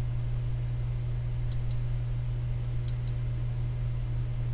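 Computer mouse clicked twice, each a quick press-and-release pair, about a second and a half in and again about three seconds in, over a steady low electrical hum.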